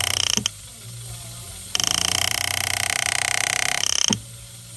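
Power-assisted graver buzzing steadily as it cuts the V's under the diamonds of an 18k white gold French pavé band. It runs in two bursts that each cut off abruptly: a short one at the start and a longer one of about two and a half seconds from near the middle.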